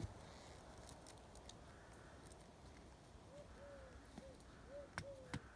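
Near silence with scattered faint ticks and knocks from small pieces of wood being handled and pressed into the soil around a post. From about three seconds in, a bird calls in short, repeated arched notes.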